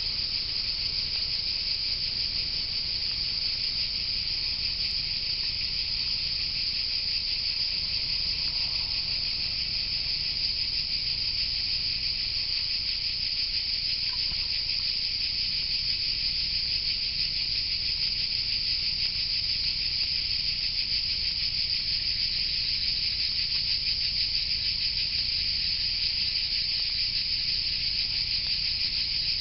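Steady, dense insect chorus: an unbroken high-pitched buzzing trill that holds level with no pauses.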